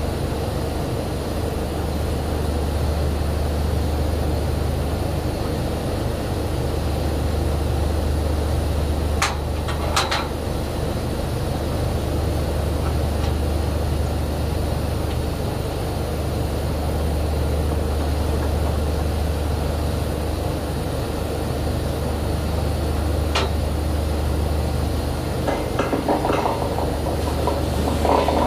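Drilling rig machinery running with a steady low drone, with sharp metal clanks about nine and ten seconds in and again a little after twenty seconds, and a spell of metallic clatter near the end.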